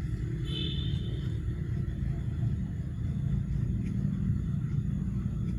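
Steady low rumble, with a brief high chirp about half a second in.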